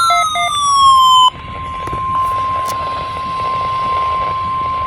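NOAA Weather Radio warning alarm tone: a steady single-pitched beep near 1 kHz (the 1050 Hz alert tone) that starts about a second in. Before it, a louder falling siren-like tone cuts off suddenly.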